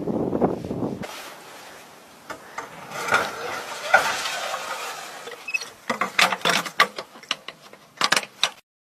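Metal scraping and squeaking as an artillery shell is handled and slid into a vehicle's ammunition rack, followed by a quick run of sharp clicks and knocks from a metal latch being worked.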